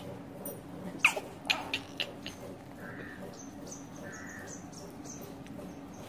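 A few quick kissing smacks on a baby, bunched about one to two seconds in, then a quiet stretch with two faint soft sounds.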